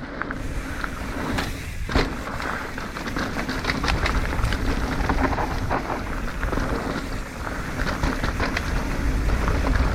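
Mountain bike riding down a loose dirt trail: wind rumbling on the microphone, with tyres crunching over loose dirt and rocks and the bike clicking and rattling throughout. One sharp knock about two seconds in.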